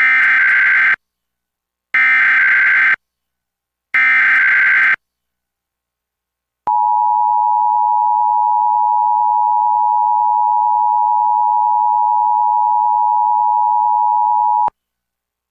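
Emergency Alert System SAME header: three one-second bursts of data tones about a second apart, then the EAS two-tone attention signal (853 and 960 Hz), one steady tone held for about eight seconds. This is the start of a Required Monthly Test being relayed.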